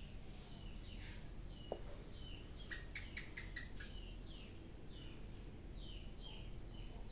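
Small birds chirping in the background: short falling chirps repeating every half second or so. A quick run of about seven sharp clicking notes comes a little under three seconds in.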